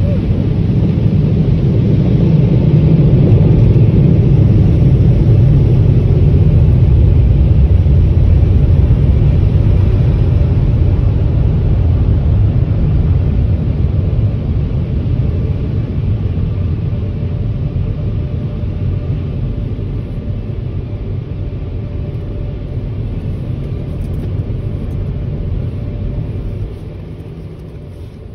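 Car wash air dryer blowers heard from inside the car: a loud, steady, deep rumble that slowly fades and drops off near the end.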